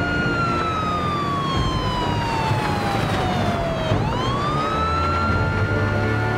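Police car siren wailing: the tone falls slowly for about four seconds, then sweeps quickly back up and holds. Engine noise runs underneath as the car drives off.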